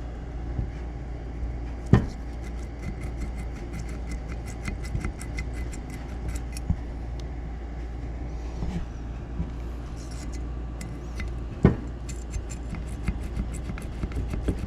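Light metallic clicks and taps from a carburetor and its small parts being handled and worked on at the bench, with two sharper knocks, one about two seconds in and one later on, over a steady low hum.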